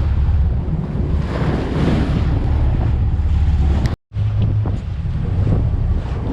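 Wind buffeting the microphone on a boat at sea, over a heavy low rumble of the boat and water; the sound cuts out completely for a split second about four seconds in.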